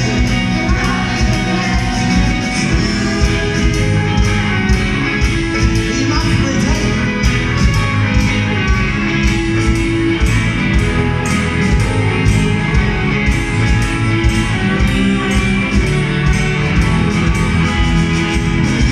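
Live rock band playing with several singers over electric and acoustic guitars, bass, keyboard and a steady drum beat, heard through the club's PA.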